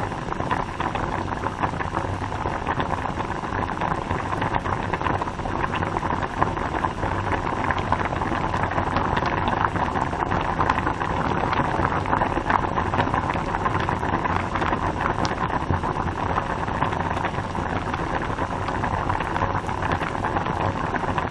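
Pot of water boiling, bubbling steadily with a dense stream of small pops and crackles.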